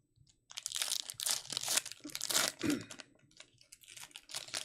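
A trading-card pack wrapper being torn open and crinkled, in two bouts of crackling.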